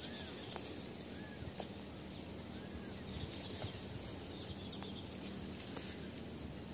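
Forest ambience: a bird gives a short rising-and-falling call about once a second, three times in the first few seconds, over a steady hiss of insects, with a few light snaps and rustles as leafy branches are pulled and broken.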